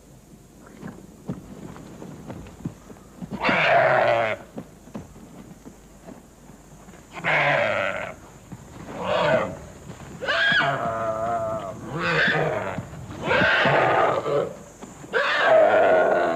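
A goat bleating in distress, about seven loud cries that begin a few seconds in and come every second or two, while Komodo dragons bite into it and eat it alive.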